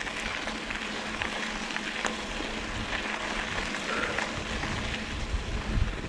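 Hardtail mountain bike rolling over a dry dirt trail: steady tyre noise on the dirt with a few sharp clicks from the bike, and wind rumbling on the action camera's microphone, growing stronger near the end.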